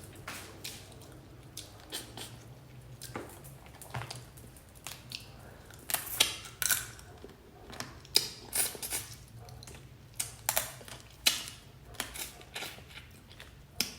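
Close-up eating sounds: wet chewing and lip smacking, with irregular short crunchy clicks and no talking.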